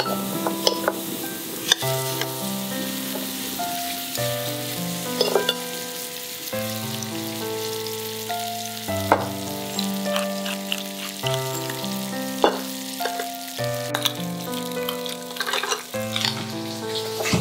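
Pork belly and grated garlic frying in oil in a frying pan: a steady sizzle with scattered spattering pops. Background music with plain sustained notes plays throughout.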